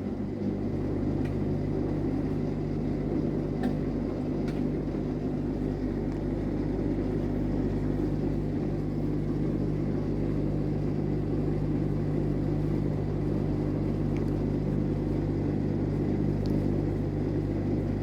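LG top-loading washing machine's drain pump starting up about half a second in, then running with a steady hum at the start of a spin cycle.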